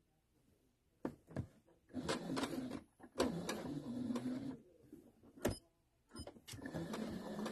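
Baby Lock Allegro sewing machine stitching very slowly in three short runs, its motor starting and stopping with a few clicks in between.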